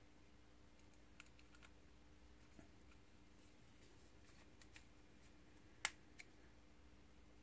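Near silence, with a few faint light clicks of small electronic parts being handled on the bench; one sharper click comes a little before six seconds in.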